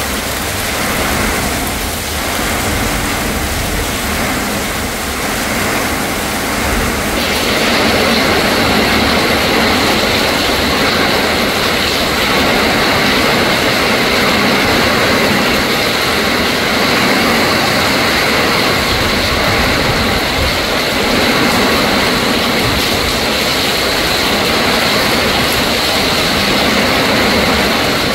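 Thunderstorm with heavy rain pouring onto broad leaves and gusting wind; after a cut about seven seconds in, strong storm wind rushes through the trees with rain, loud and steady.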